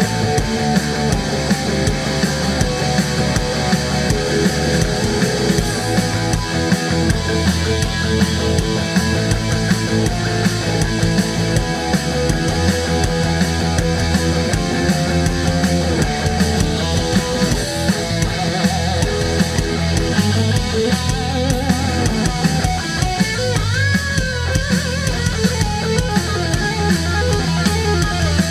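Live rock band jamming: electric guitar playing a lead over bass and a drum kit, with a bent, wavering guitar note about two-thirds of the way through.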